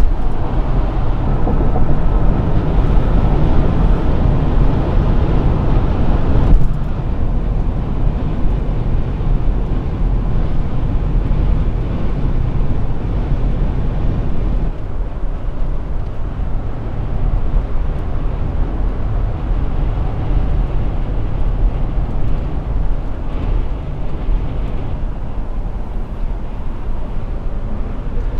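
Road noise inside a van's cabin driving at highway speed: a steady low rumble of engine and tyres. It drops abruptly a little about six seconds in and again near the middle.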